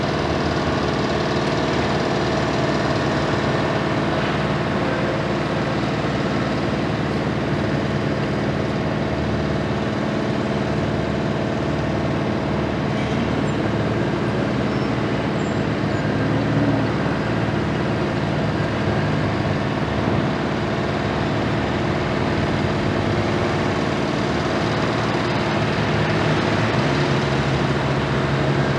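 Heavy diesel machinery running steadily: the engine of a Komatsu PC490 long-front demolition excavator, with a container truck's engine alongside.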